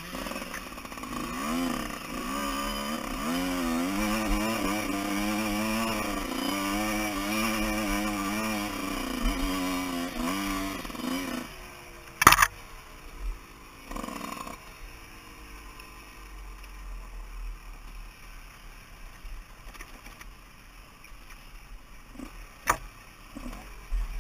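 Enduro motorcycle engine revving up and down under throttle, its pitch rising and falling over and over. About halfway it drops to a quieter, low running, with a sharp loud knock just after and another near the end.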